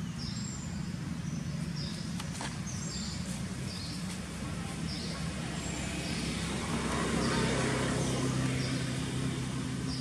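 Steady low hum of a motor vehicle engine running, growing a little louder after the middle. A short high chirp repeats evenly, about every second, above it.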